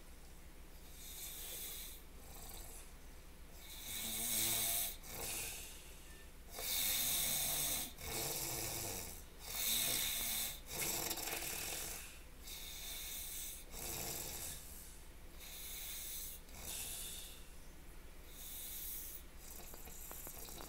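A person snoring in their sleep, one snore after another, loudest through the middle and softer near the end.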